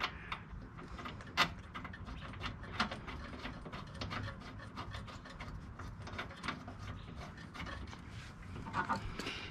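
Socket ratchet clicking in short runs of irregular clicks while a spark plug is turned into the snowblower engine's cylinder head.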